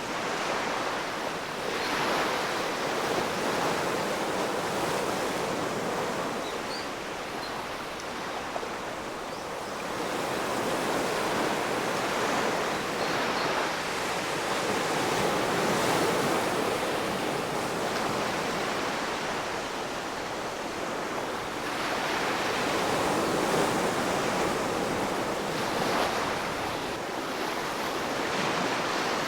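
Ocean surf: waves breaking and washing onto shore in a continuous rush, swelling and easing in loudness every several seconds as each wave comes in.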